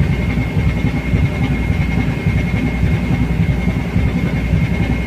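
A ship's engine running while the vessel pulls away from the quay: a loud, steady low rumble with a thin, steady high whine over it.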